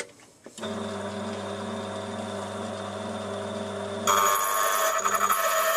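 Key-cutting machine: its motor starts about half a second in and spins with a steady hum, then about four seconds in the cutter bites into the key blank and a louder, high grinding scrape joins it as the cut for a pin position is made.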